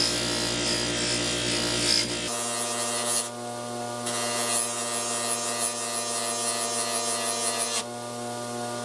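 6-inch bench grinder running with a polishing wheel, its motor humming steadily, while a steel ball peen hammer head is pressed against the spinning wheel and polished. The rubbing eases near the end as the head is lifted away.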